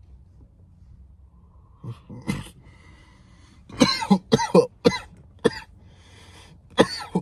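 A man coughing in a fit after a hit from a vape: two coughs about two seconds in, a wheezing breath, then a run of short coughs that carries on to the end.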